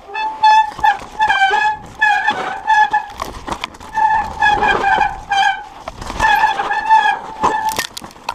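Mountain bike disc brakes squealing in a string of short, high-pitched squeals at one steady pitch, about two a second, with a few sharp knocks from the bike going over bumps.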